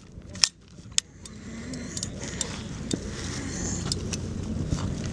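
Scattered sharp reports of gunfire from the firing range, irregular and about two a second, the loudest two about half a second and one second in, over a low steady rumble.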